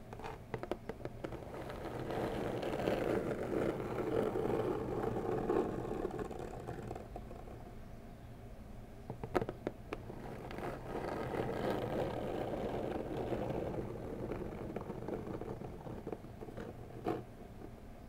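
Fingernails scratching slowly and deeply across a brown cardboard packing box, in two long strokes of several seconds each, with a few sharp taps on the box in between and near the end.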